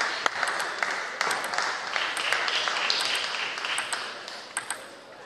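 Applause dying away over the first four seconds or so, with a few sharp clicks of a table tennis ball being bounced as the player gets ready to serve.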